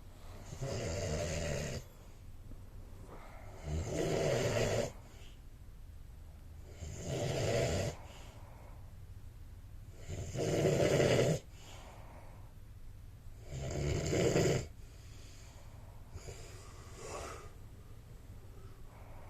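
A man snoring: five loud snores about three seconds apart, then two fainter ones near the end.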